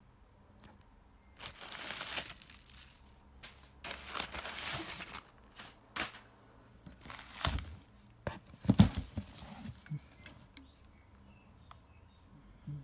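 Bubble wrap crinkling in two long rustles as it is pulled out of a cardboard box, then a few louder thumps and small knocks as plastic bottles in the box are handled.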